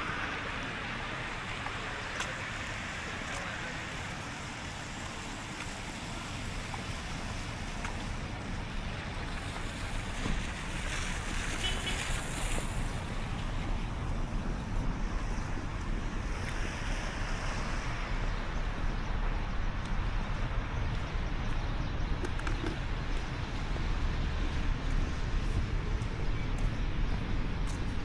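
Steady hiss of rain and traffic on a wet street, with swells of tyre hiss as vehicles pass about ten and sixteen seconds in. A low wind rumble on the microphone grows in the second half.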